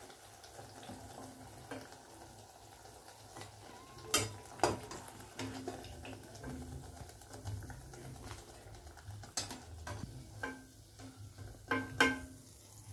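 Banana fritters frying quietly in oil, with a steel slotted skimmer clinking against the pan as the fried pieces are lifted out. There are several sharp clinks, the loudest at about four seconds in and near the end.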